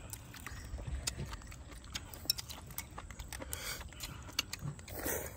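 Irregular light clicks and clinks of kitchen utensils, scattered unevenly over a low background hum.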